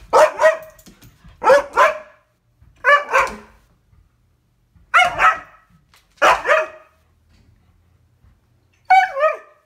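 An upset husky giving six short, pitched, wavering barks, each broken into two quick parts, about one every second or so with a longer pause before the last.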